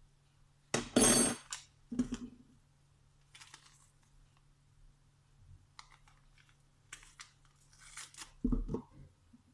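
Kitchen handling noises: a sharp clatter about a second in, a knock a second later, light rustling, and a dull knock near the end.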